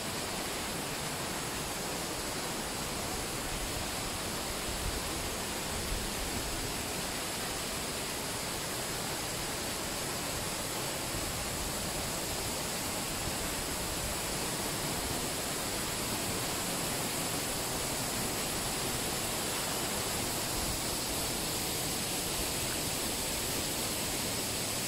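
Mountain-stream waterfalls pouring over limestone rocks into pools: a steady, even roar of rushing water.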